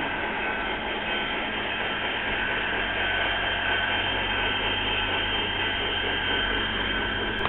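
G-gauge model diesel locomotive running along the garden track: a steady mechanical drone with a couple of faint, steady high tones.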